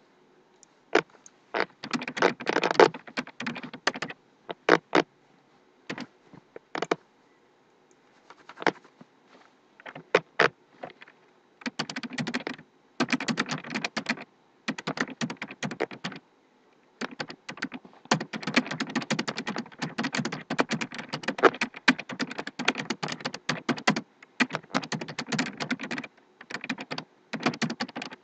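Typing on a computer keyboard: scattered single keystrokes at first, then long runs of rapid keystrokes broken by short pauses.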